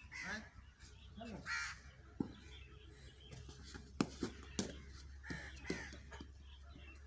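Cricket bat striking the ball once with a sharp crack about four seconds in, the loudest sound here, among several short harsh calls and a few voices.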